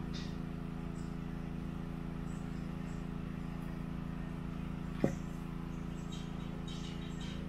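A steady low hum with several steady tones underneath. About five seconds in there is a single sharp knock as the hollowed wooden bowl is set down on the log stump. Faint short high chirps come near the end.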